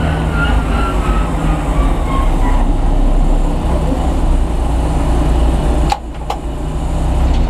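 Boeing 737-800 jet engines running, a steady low rumble with a whine that falls in pitch over the first couple of seconds. Two sharp clicks come about six seconds in, and the level dips briefly after them.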